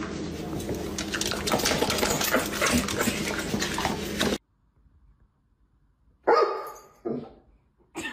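Dog sounds: a dense, noisy stretch lasting about four seconds that cuts off suddenly, then after a quiet gap a few short sounds near the end.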